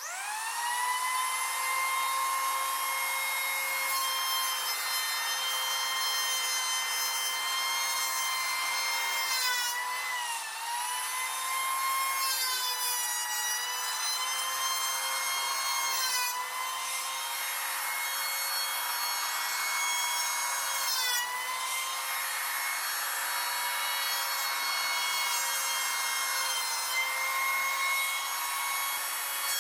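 Electric hand planer starting up with a rising whine, then running steadily as its cutter shaves a wide wooden board in passes. Its pitch dips briefly three times.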